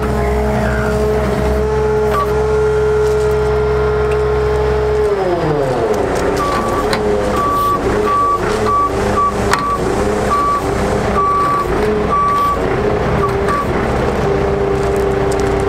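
Bucket truck's Cummins ISC diesel running with a steady hydraulic whine. About five seconds in, the pitch drops and wavers as the hydraulics take load, and a high alarm beeps on and off for several seconds. The steady whine returns near the end.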